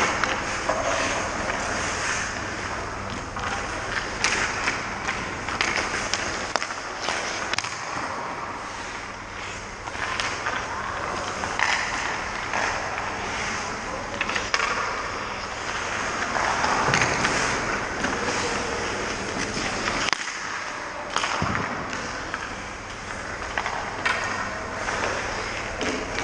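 Ice hockey skates scraping and carving on rink ice, with sharp knocks here and there from sticks and pucks as shots are taken on a goalie.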